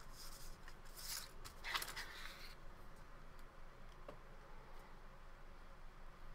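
Faint scratchy strokes of a hobby knife cutting through sandpaper, a few in the first couple of seconds, then only light ticks.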